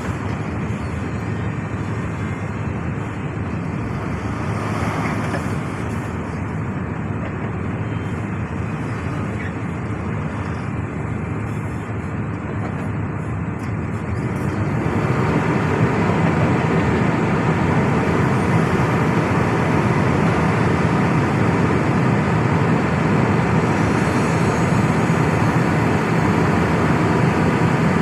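SANY SY365H excavator's diesel engine running, growing louder about halfway through and settling into a steady low drone.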